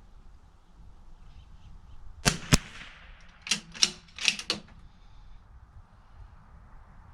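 A .22 rimfire bolt-action rifle, a Bergara B14R, fires: two sharp cracks close together about two seconds in, followed a second later by four or five quick metallic clicks and clacks of the bolt being worked.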